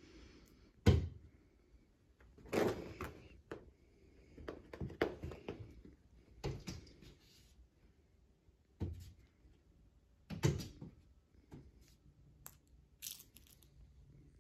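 Two cats pouncing and scrabbling on carpet and against a wall as they chase a laser dot: irregular thumps and scratches of paws, a burst every second or two.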